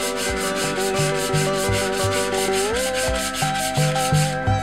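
500-grit sandpaper rubbed by hand over a metal bell housing, in fast even back-and-forth strokes of about seven a second, stopping about four seconds in.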